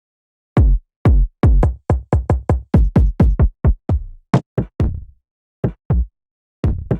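808 bass drum hits from a drum machine, played in a quick, uneven pattern. Each hit starts with a sharp click and falls in pitch into deep bass; the hits begin about half a second in, thin out after about five seconds, and a last pair cuts off abruptly at the end.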